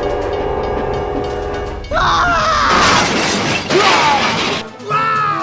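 Background music with held tones, broken about two seconds in by a loud, noisy crash-like sound effect with sliding tones that lasts about two and a half seconds.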